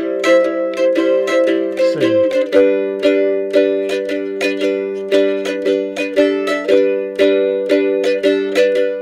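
F-style mandolin strummed in a steady rhythm, about three to four strokes a second. It holds a C chord, then changes to G about two seconds in.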